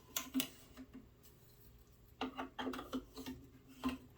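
Scattered light clicks and knocks of the plastic monogram template and hoop being handled and turned around on the monogrammer attachment, with a small cluster of clicks a little past halfway; the sewing machine is not running.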